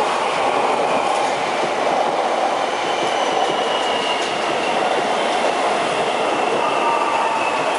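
CPTM Série 3000 electric commuter train passing close by at speed, a steady loud rumble of wheels on rail, with a faint high whine drifting slightly down in pitch through the middle.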